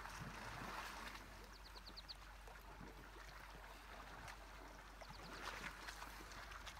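Faint sloshing of water as a group of elephants wades through a river. A bird calls twice, each call a quick run of about five high notes.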